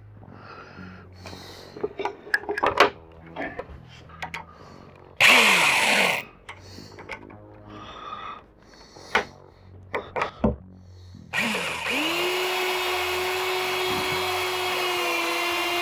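Corded electric drill boring into a wooden bunk-bed rail. A short burst about five seconds in winds down as the trigger is let go. From about eleven seconds the drill runs steadily under load, its pitch dropping a little near the end, with a few knocks of handling before it.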